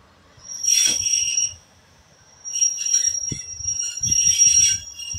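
High-pitched wheel squeal from a Class 141 Pacer railbus pulling away, the grinding of its rigid four-wheel chassis' flanges against the rail. The squeal comes in two stretches, a short one about half a second in and a longer one from about two and a half seconds in, with a few low thumps beneath it.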